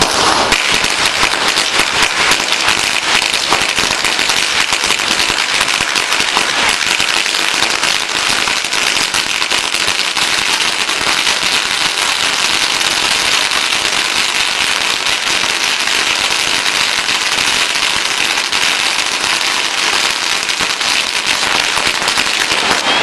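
A long roll of Chinese firecrackers going off in a dense, unbroken rapid crackle of sharp bangs.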